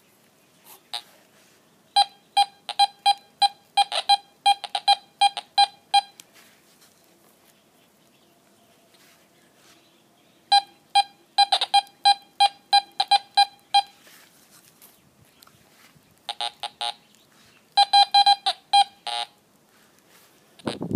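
Teknetics G2+ metal detector giving quick, short beeps, about three a second, as its search coil is swept back and forth over coins and a nail laid close together. The beeps come in four runs with pauses between.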